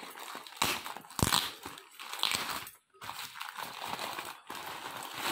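Plastic courier mailer bag crinkling and rustling as it is handled and pulled open by hand, with one sharp knock about a second in.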